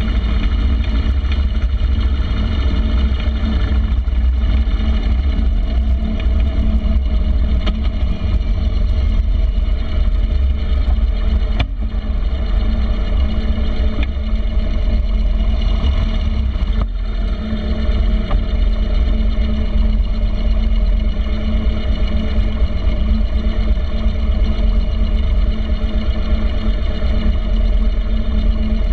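Harley-Davidson Street Glide's V-twin engine running steadily as the motorcycle rides slowly, with the engine note dropping briefly twice, about 12 and 17 seconds in.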